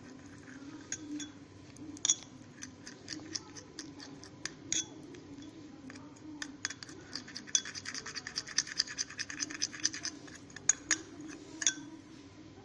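A spoon stirring and scraping a thick paste of ground wormwood, halva and olive oil in a small bowl, with sharp clinks and taps against the bowl. The strokes come in a quick, dense run in the second half.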